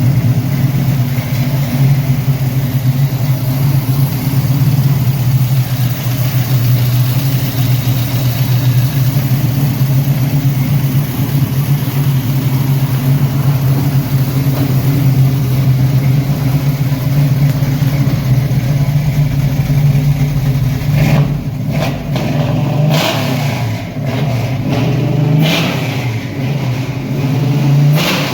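383 cubic-inch small-block Chevy V8 with Holley Sniper fuel injection running with a steady, deep note. From about 21 seconds in, the engine speed rises and falls a few times as it is revved.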